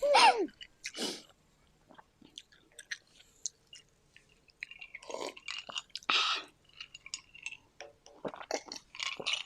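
Close-miked mukbang-style chewing of sushi: wet mouth smacks and small crunches coming in scattered bursts, with quiet gaps in between.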